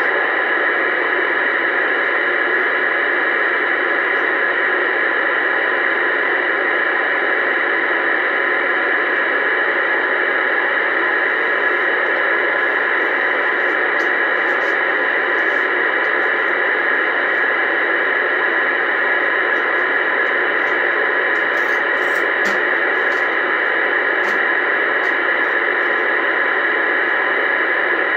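Steady static hiss from a Uniden Bearcat 980SSB CB radio's speaker, receiving on channel 28 in AM with no voice on the channel; the hiss is thin and unchanging, with a few faint ticks.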